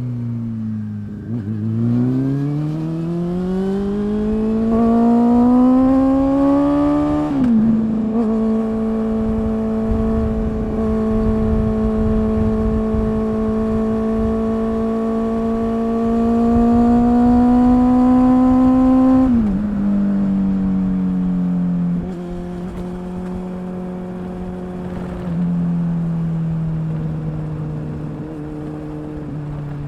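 Honda CB400SF inline-four engine through a BEAMS CORSA-EVOII slip-on silencer, ridden through the gears. The revs climb smoothly, drop sharply with an upshift about seven seconds in, and hold a fairly steady note. They fall again a little before twenty seconds and settle at a lower steady pitch. The note is one the owner finds little different from the stock exhaust.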